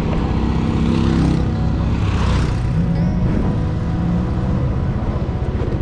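Motorbike engine running under way with road and wind noise, its pitch rising and falling as the bike slows and turns; background music plays underneath.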